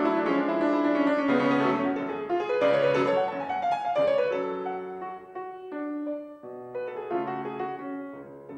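Solo grand piano playing classical music: a loud, busy passage that thins out and turns quieter about halfway through.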